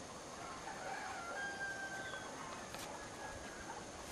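A rooster crowing faintly, one drawn-out call between about one and two and a half seconds in, over a steady outdoor hiss.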